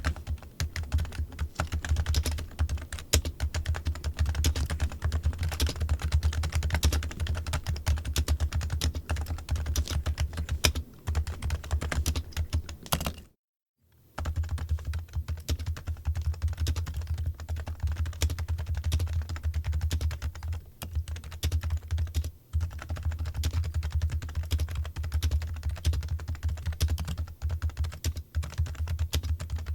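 Rapid, continuous typing on a computer keyboard, many keystroke clicks a second, over a steady low hum; the sound cuts out completely for under a second about 13 seconds in.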